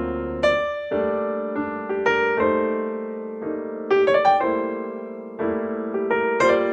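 Background music of a solo piano, with chords and single notes struck every second or so and left to ring out.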